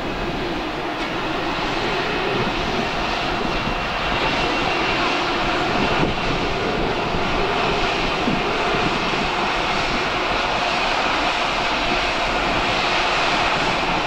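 Boeing 787-8's twin Rolls-Royce Trent 1000 turbofans running at taxi power as the airliner taxis in to its parking spot: a steady jet rush with a faint high whine, growing slowly louder as it comes closer.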